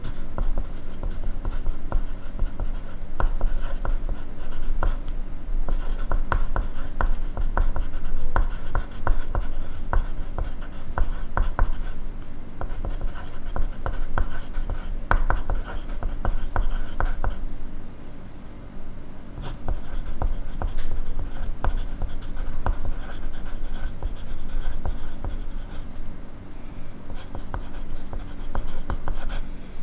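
Pencil writing on paper: a run of quick scratching strokes that eases off briefly about two-thirds of the way through, then picks up again.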